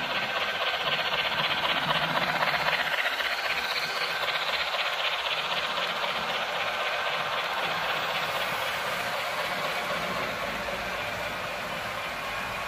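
Sound decoder of an H0 model diesel locomotive playing its diesel engine sound through the locomotive's small onboard speaker as it pulls a train of tank wagons away. The sound is steady, swells slightly a second or two in, then eases off a little.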